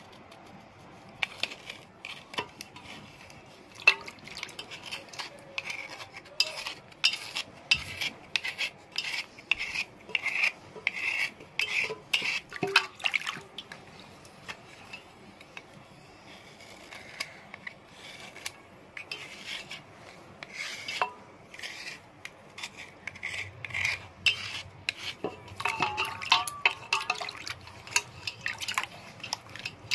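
A small knife blade scraping the wet surface of a block of edible stone in many short, quick strokes, shaving off the last of its gritty outer layer.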